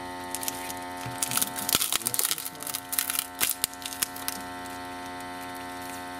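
Crackling and tearing of adhesive as a cracked LCD display panel is peeled away from a Samsung Galaxy S5's frame, in a burst of sharp crackles from about one to four seconds in. A steady electrical hum runs underneath.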